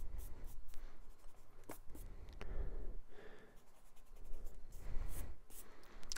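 Eraser rubbing on sketchbook paper to clear stray pencil lines from a drawing, in short irregular strokes with a few light taps.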